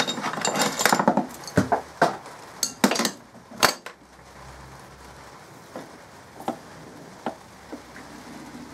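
Steel lathe parts being handled: a cluster of sharp metallic clinks and knocks in the first few seconds, then a quieter stretch with a few scattered taps.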